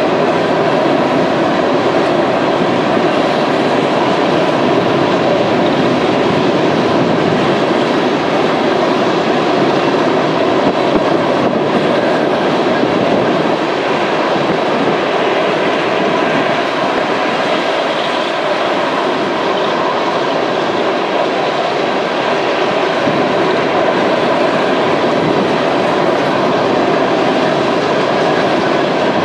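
BNSF coal train's hopper cars rolling past: a steady rumble and clatter of steel wheels on the rails.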